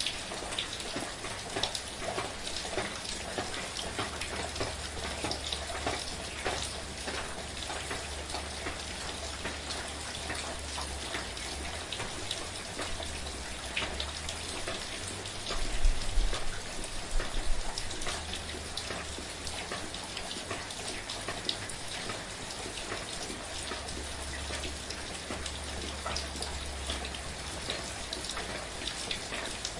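Steady, gentle rain falling, with individual raindrops pattering in the constant hiss. About halfway through there is a brief low rumble lasting a second or two.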